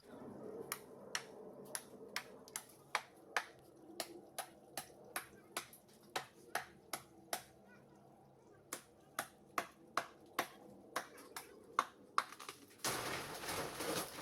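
A long run of sharp clicks or taps, about two to three a second, then a short burst of rushing noise near the end.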